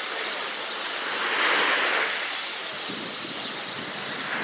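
Sea waves breaking on a beach: a wave surges up about a second in and then washes back more quietly.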